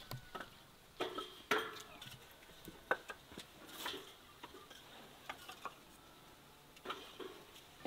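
Split firewood pieces being stacked by hand into a steel-framed rack: irregular light wooden knocks and clacks as logs are set down against one another.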